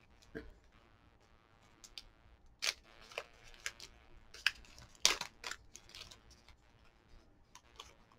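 Plastic snack-bar wrapper crinkling in the hands in scattered short crackles as it is worked at to open, the loudest about five seconds in.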